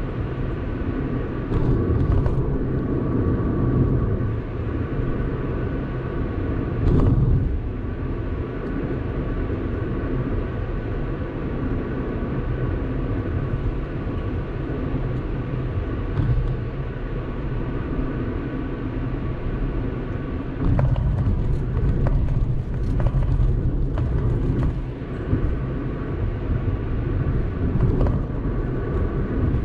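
A car driving along a road: a steady rumble of tyres and engine, getting louder for a few seconds about two-thirds of the way through.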